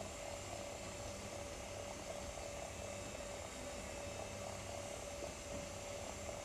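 Steady droning hum over an even hiss, one constant tone held throughout with no calls or other events.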